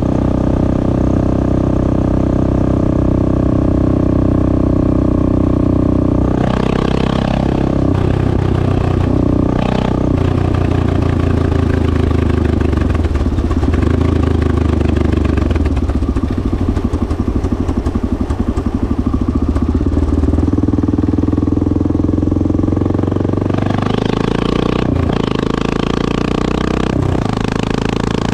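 1986 Honda XL600R's single-cylinder four-stroke engine running through a Devil stainless-steel exhaust. It holds steady revs at first, then the revs change several times. In the middle it drops to low revs with its separate firing pulses audible, then picks up again near the end.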